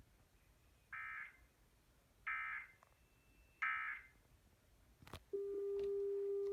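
Emergency Alert System SAME digital data signal: three short warbling data bursts about 1.3 seconds apart, the end-of-message code closing the test. A click about five seconds in is followed by a steady low tone.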